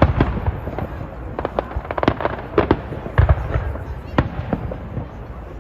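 Fireworks exploding: a rapid series of sharp bangs and crackles, with the loudest reports right at the start and about three seconds in.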